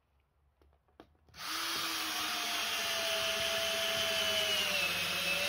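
Cordless drill driving a 100 mm bolt down into a timber base plate, starting about a second and a half in. The motor whine slowly sinks in pitch as the bolt goes in deeper.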